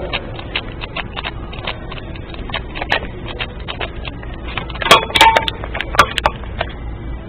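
Repeated small clicks of a directional combination padlock's dial being pushed to different directions, a few a second, with a louder flurry of clicks about five seconds in.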